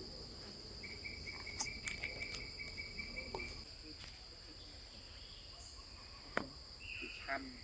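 Steady, high-pitched drone of insects in the tree canopy, with a second, lower insect trill for a couple of seconds near the start and a few faint clicks.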